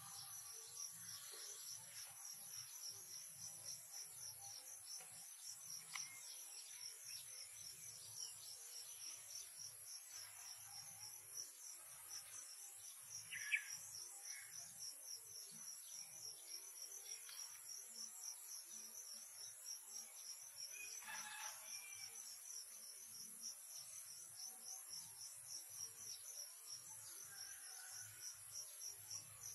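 Faint, steady chorus of insects, crickets or similar, trilling in the grass with a fast pulse. A single short, sharp chirp stands out about halfway through.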